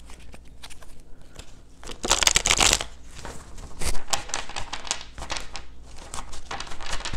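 A tarot deck being shuffled by hand: a run of quick papery card flicks, with a denser rush of cards about two seconds in and a sharp snap about four seconds in.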